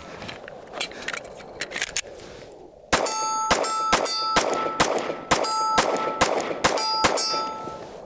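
A rapid string of pistol shots, about two a second, starting about three seconds in, each hit on a steel target plate answered by a clear two-note ring.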